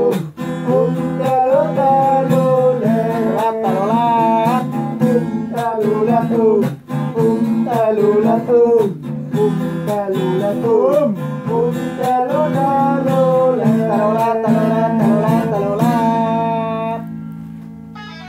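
Background music: strummed acoustic guitar with a melody line over it, fading out about a second before the end.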